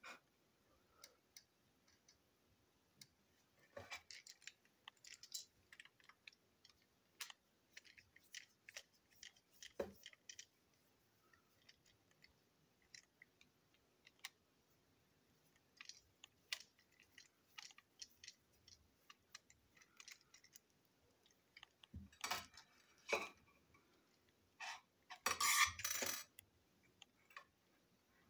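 Scattered light clicks and taps of small plastic parts as a toy steam locomotive is handled and taken apart, with a cluster of louder clacks and rattles a few seconds before the end.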